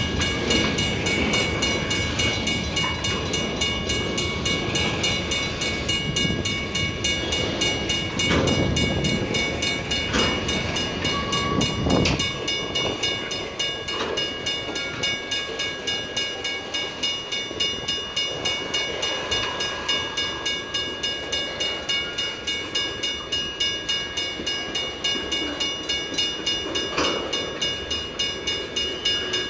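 Freight train of tank cars rolling past on the rails, a continuous rumble with a thin steady high squeal over it. A few sharp clanks sound in the first half, and later the wheels settle into a regular clicking rhythm.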